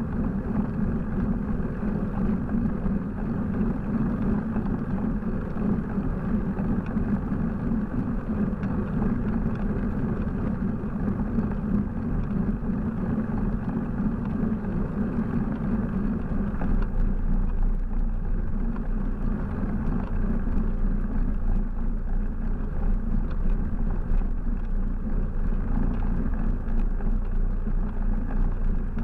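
Steady wind rush and road rumble on a bicycle-mounted camera's microphone while riding. The low rumble grows louder about halfway through.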